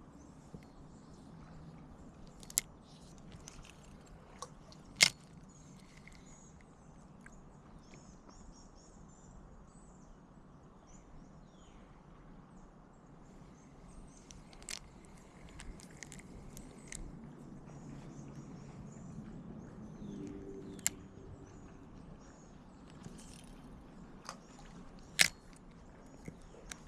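Quiet outdoor ambience with faint bird chirping and a low steady hum, broken by a few sharp clicks, the loudest about five seconds in and near the end.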